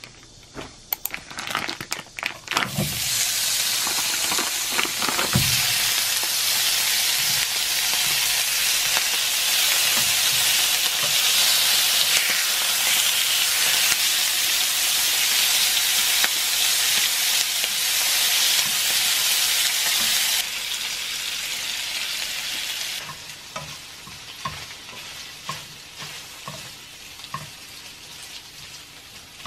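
Sliced duck meat frying in a nonstick pan. A few clicks and knocks come as it goes in, then a loud, steady sizzle. About two-thirds of the way through the sizzle drops away, leaving quieter crackling and light pops as it is stirred with chopsticks.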